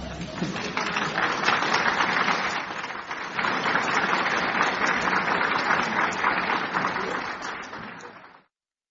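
Audience applauding steadily in a room, fading near the end and cutting off suddenly about eight seconds in.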